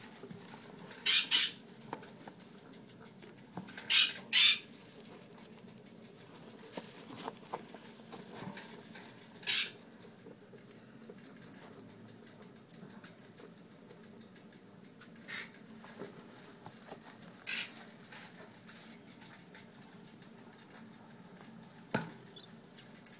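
Young rat pups squeaking in short, high-pitched bursts as they are handled: two quick pairs in the first few seconds, then single squeaks spread out. Light rustling of paper bedding runs underneath, and a single sharp click comes near the end.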